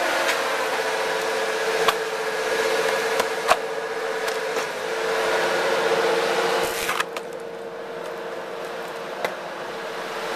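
Hydraulic log splitter's motor and pump running with a steady whine, with a few sharp cracks and snaps as the ram drives logs through the wedge and they split.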